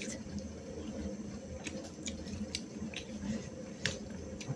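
Eating sounds: chewing and eating by hand from steel plates, heard as a dozen or so scattered small sharp clicks over a low steady hum.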